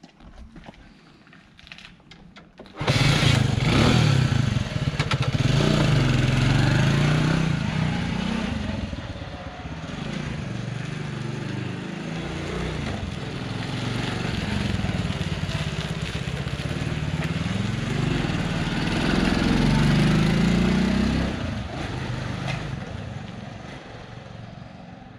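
Honda S90 motorcycle's small single-cylinder four-stroke engine starting abruptly about three seconds in, then running as the bike is ridden off, the revs rising and falling again and again through the gears. It is loudest just after starting and swells again when the bike comes back near, then fades away toward the end.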